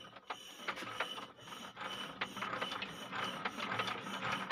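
Rapid, steady mechanical clicking and rattling from a small stationary diesel engine being turned over while its injector fuel line is loosened to bleed an airlock, growing louder about halfway through.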